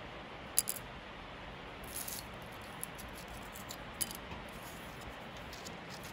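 Light clicks and taps of a single-edge razor blade being handled, set down and tipping on a metal workbench top. The loudest click comes about half a second in and another about four seconds in, with a brief rustle of fingers around two seconds, over a steady faint hiss.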